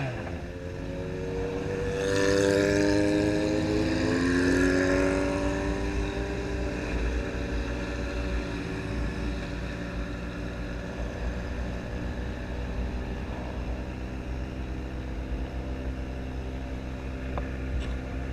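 Motorcycle engine revving, its pitch rising for a few seconds about two seconds in, then running steadily at low revs.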